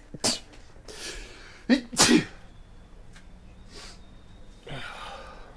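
A man sneezing, several sharp sneezes in quick succession with the loudest about two seconds in, then a softer breathy sound near the end.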